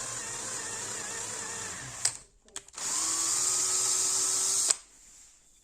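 Small electric drill running steadily, stopping with a click about two seconds in, then starting again with its pitch rising as it spins up and cutting off sharply near the end.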